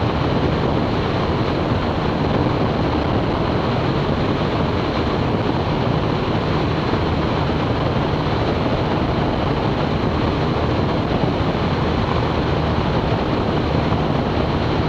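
Steady in-cabin drone of a Zenith CH 650's 118-hp UL Power UL350i four-cylinder engine and propeller in flight, with the power pulled back.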